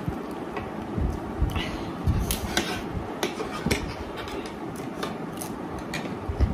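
Metal spoons and forks clinking and scraping against plastic plates as two people eat noodles, in a string of short clicks with a few low thumps, over a steady background hum.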